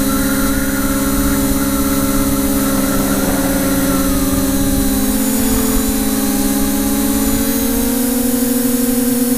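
Small multirotor drone's electric motors and propellers heard from its onboard camera: a steady, multi-toned drone hum whose pitches shift slightly from about halfway through as the motors adjust, over a low wind rumble on the microphone.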